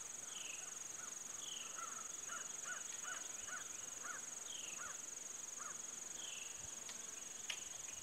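Faint rural outdoor ambience: a steady high buzz of insects, with birds calling in a run of short repeated notes and a few short downward chirps.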